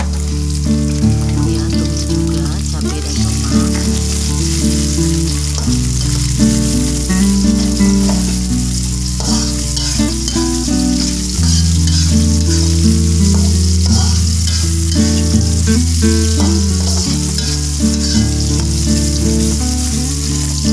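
Tomatoes, chillies, shallots and garlic sizzling as they stir-fry in hot oil in a wok, with a metal spatula stirring. Background music plays underneath, its bass note changing every five or six seconds.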